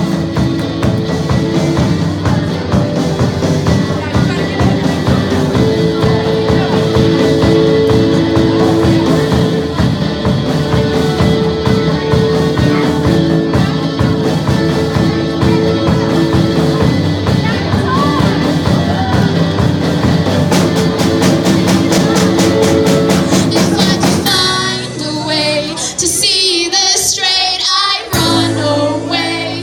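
Rock music with a drum kit and singing; about 24 s in the full band thins out to a sparser passage before picking up again near the end.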